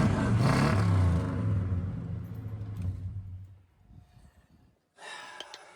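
LS-swapped GM V8 engine running steadily in a 1985 Chevy C10, now that a faulty fuel-pump wire behind a crank-no-start has been repaired; the engine sound dies away about three to four seconds in.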